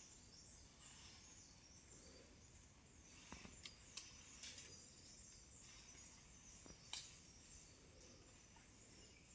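Near silence: faint outdoor ambience with soft high chirps and a few sharp clicks near the middle.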